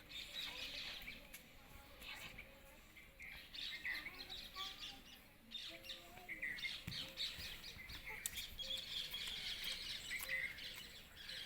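Small birds chirping and twittering, many short calls repeating throughout.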